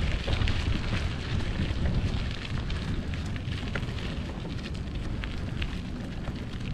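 Strong, cold wind buffeting the microphone: a continuous low, fluttering rumble under a hiss, with scattered crackling ticks.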